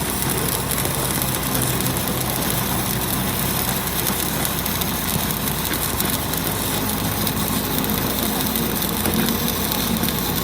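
Workshop machinery running steadily: an even motor hum with a hiss over it, unchanging throughout.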